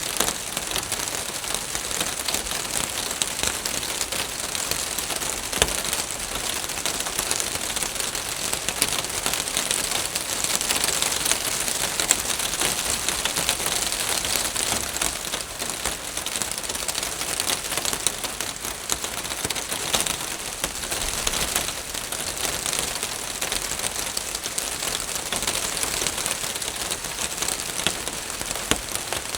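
Rain falling on a roof: a steady hiss of many drops pattering together, with individual drop taps ticking through it.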